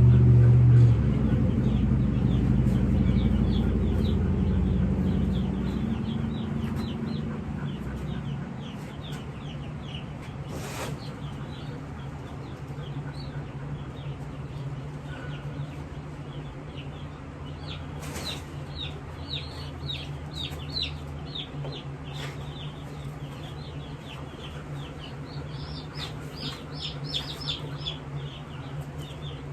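Young Cornish cross meat chicks peeping, many short high falling peeps that come thick and fast near the end, over a steady low hum. A low rumble fades out over the first several seconds, and a few brief rustles or knocks are heard in the middle.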